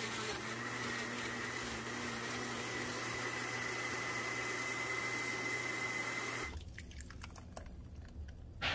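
Countertop glass-jar blender running steadily with a whining motor, pureeing a thick chile salsa with liquid; the motor cuts off about six and a half seconds in, followed by a few faint clicks.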